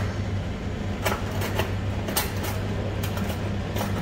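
Cooking sounds from a frying pan of creamy fettuccine with chicken: short, irregular clicks and scrapes, several a second, over a steady low hum.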